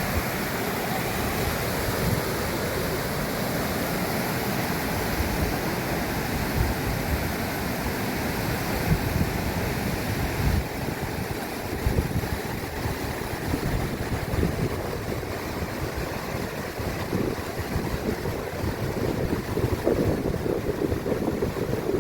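Steady rush of running water, with wind buffeting the microphone in low, irregular gusts.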